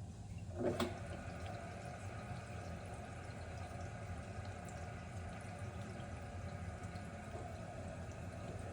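Water running with a steady hiss through the plumbing of an under-sink reverse osmosis filter system, with a brief knock about a second in.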